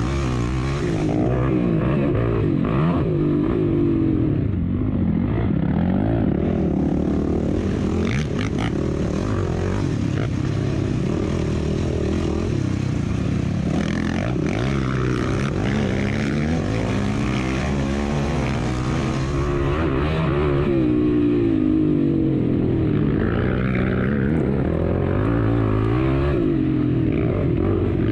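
Racing vehicle's engine running hard, its pitch rising and falling again and again as it speeds up and slows.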